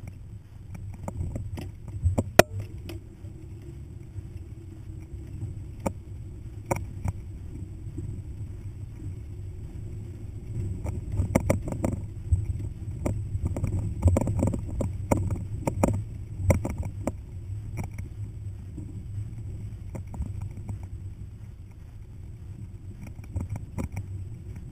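Hummer rolling slowly over a rough dirt trail: a steady low engine and drivetrain rumble, with frequent knocks and rattles as it goes over bumps. The sharpest knock comes about two seconds in, and the knocks come thicker in the middle.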